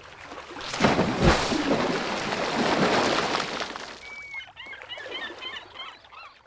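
End-screen sound effect: a rushing whoosh that swells with a low thud about a second in and fades away, followed near the end by a run of quick bird chirps.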